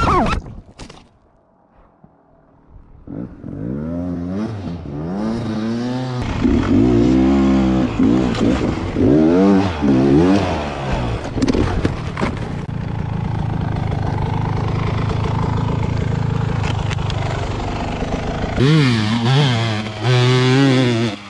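Dirt bike engines revving hard in repeated bursts, the pitch sweeping up and down, with scraping and clattering over rock. A quiet spell of a second or two comes near the start, and the engine runs steadier in the middle.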